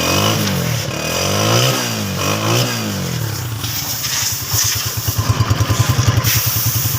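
Honda motorcycle engine revved in quick blips, its pitch rising and falling several times, then settling to an even idle with a steady rapid thump from the exhaust.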